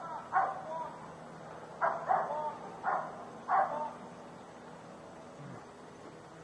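A dog barking: five short single barks in the first four seconds, then it stops.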